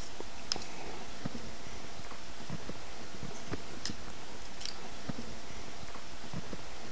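A few faint clicks of a metal fork against an open sardine tin as the fish are lifted out, over a steady low background noise.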